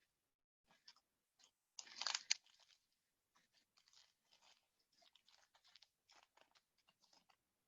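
Foil wrapper of a trading-card pack torn open with a short crinkly rip about two seconds in, followed by faint rustling and light clicks as the cards are handled.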